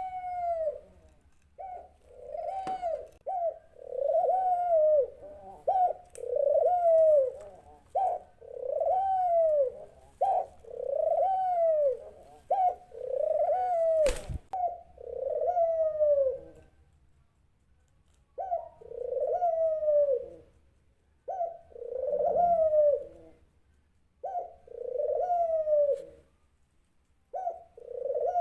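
Dove cooing over and over, each coo a short arched note that rises and falls, about one a second, with a pause of a couple of seconds after the middle. A single sharp click sounds about halfway through.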